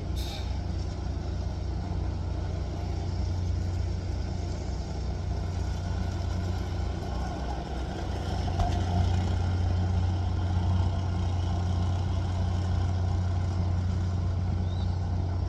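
An engine running steadily at idle, a continuous low hum with no change in speed.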